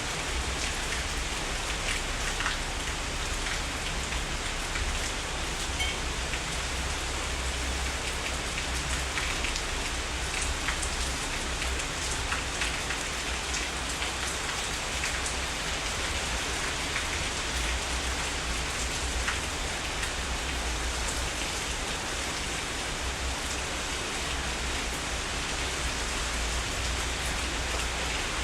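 Heavy rain falling steadily, a dense even hiss with many individual drops ticking through it.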